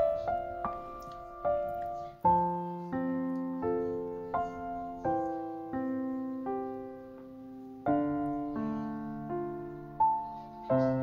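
Background piano music: single notes struck in a steady, unhurried melody over held chords, each note ringing and fading.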